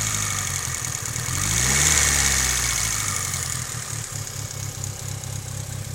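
Mitsubishi Lancer Evolution VIII's turbocharged 2.0-litre four-cylinder engine, warmed up, idling with a lifter tick. About a second and a half in, the revs rise briefly and fall back to idle.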